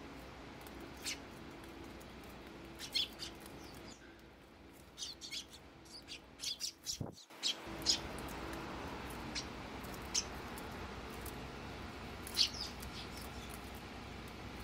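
Eurasian tree sparrows giving short, scattered chirps, with a quick run of them around the middle, over a faint steady low hum.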